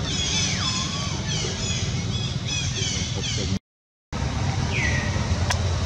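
High-pitched animal calls: a rapid run of short chirps with a few longer falling, whistle-like squeals, over a steady low rumble. The sound drops out completely for about half a second a little past halfway, and there is a single click near the end.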